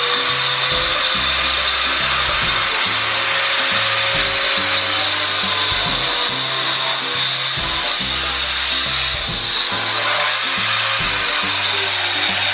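Angle grinder fitted with a 4-inch 40-tooth TCT circular saw blade running at speed and sawing through a wooden batten, a steady high whine over the rasp of the cut.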